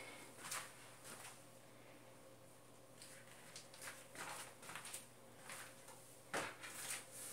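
Faint scattered clicks, light knocks and brief rustles of handling, over a faint steady hum.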